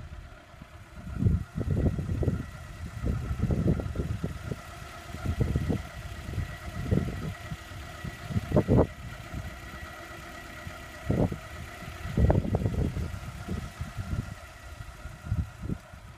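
Vehicle engine idling steadily, broken by irregular low rumbles and thumps.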